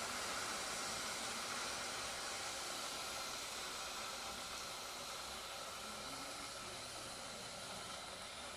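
Red-hot small stones hissing and steaming in water after being dropped in to quench, the hiss slowly dying away as they cool.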